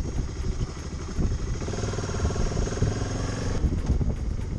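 Motorcycle engine running on the move, with steady low wind rumble. The engine note climbs for a couple of seconds in the middle and falls away suddenly about three and a half seconds in.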